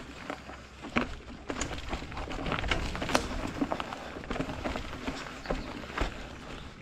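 Orbea Occam full-suspension mountain bike rolling down a rocky, leaf-strewn forest trail: tyres running over leaf litter and stones, with irregular knocks and rattles from the bike as it hits rocks and roots.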